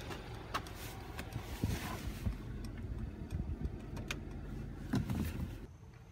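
Scattered clicks and soft thumps of someone climbing into a car's driver's seat and pressing buttons on the centre console. The sound drops to a quieter background near the end.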